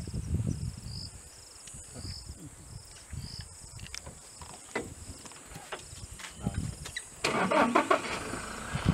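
Safari vehicle's engine running low, under a regular high insect chirp that repeats about twice a second and stops a few seconds in, with scattered small clicks. About seven seconds in, a louder rushing noise sets in.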